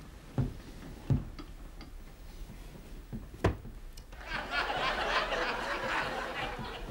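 A few short knocks, then a burst of audience laughter from the sitcom's laugh track that swells about four seconds in and lasts a couple of seconds.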